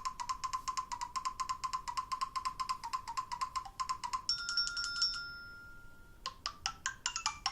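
Nokia Lumia 1520 ringtone previews playing from the phone's speaker: a rapid electronic trill of short beeps at one pitch for about four seconds, then a brief held chime, then a few short separate blips near the end.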